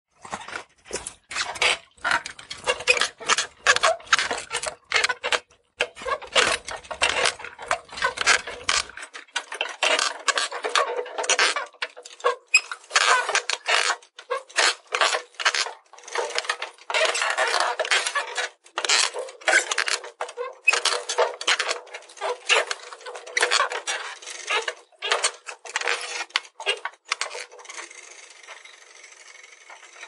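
A squeaky, rattling bicycle: a rapid, irregular clatter and squeak of loose parts that dies down to a faint hiss near the end.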